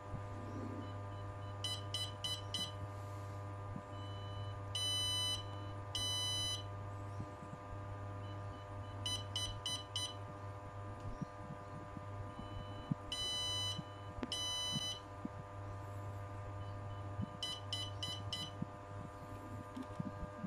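Electronic buzzer on a colour-detection glove beeping in coded patterns: groups of four quick beeps alternate with pairs of longer beeps, repeating every few seconds. The beep pattern signals which colour (red, green or blue) the colour sensor is reading. A steady low hum runs underneath.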